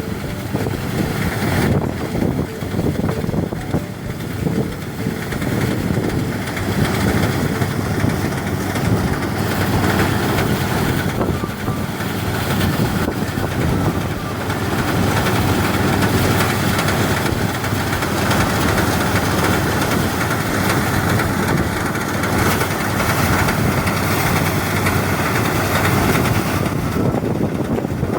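Engine-driven rice threshing machine running steadily.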